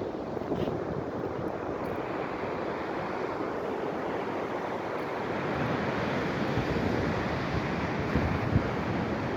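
Storm-driven ocean surf breaking, mixed with gusty wind buffeting the microphone. The low rumble grows heavier about two-thirds of the way through.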